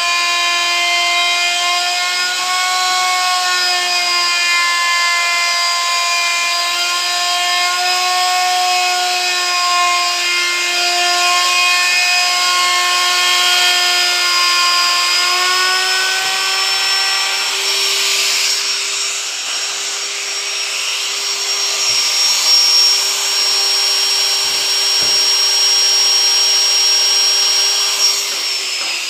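Handheld electric router running at a steady high whine while cutting into a round wooden panel, with a harsher cutting hiss in the second half. Its pitch starts to fall at the very end.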